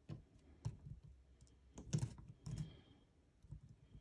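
Light plastic clicks and knocks as action figures and toy barbecue pieces are handled and moved: about five short taps, the loudest about halfway through.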